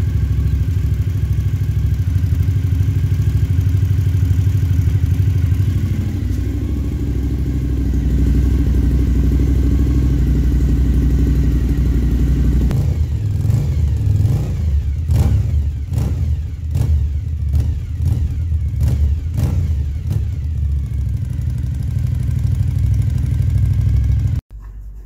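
Suzuki TL1000S 90-degree V-twin engine running at idle, started right after an oil and filter change so the oil level can be rechecked. It runs steadily for about the first half, then turns uneven with a series of short surges, and cuts off abruptly near the end.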